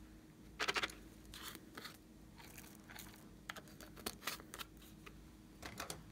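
A small hard plastic container's clear screw cap is twisted open by hand, giving crackling plastic clicks in several short bursts. The loudest burst comes just over half a second in.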